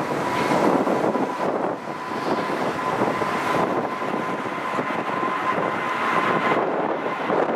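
Boeing 777 twin jet engines at takeoff thrust as the airliner lifts off and climbs away: a loud, steady roar with a thin steady whine running through it.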